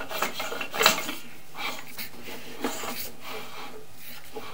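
Sewer inspection camera's push cable being fed into the drain line, scraping and rubbing with scattered knocks; the sharpest knock comes about a second in.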